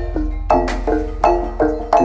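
Gamelan music for a jaranan dance: metallophones strike a quick run of ringing notes, about two or three a second, over a steady deep bass.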